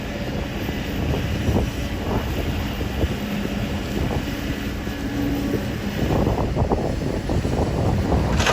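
Kobelco excavator's diesel engine running under load as it works, a steady low rumble that grows busier about six seconds in, with wind on the microphone.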